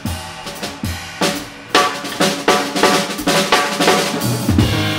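Jazz drum kit solo break: snare hits, rimshots, bass drum and cymbal strokes in quick, uneven succession. The upright bass and piano come back in near the end.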